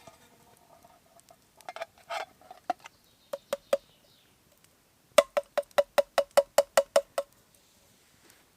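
Sharp metallic clicks, each with a brief ringing note: a few scattered ones, then a quick even run of about a dozen at roughly five a second.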